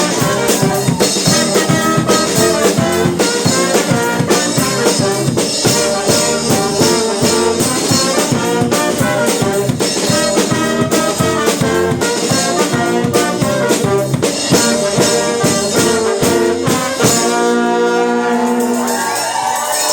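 A live fanfare brass band, trombones and trumpets over drums, plays a lively up-tempo tune, then closes on a long held chord about three seconds before the end.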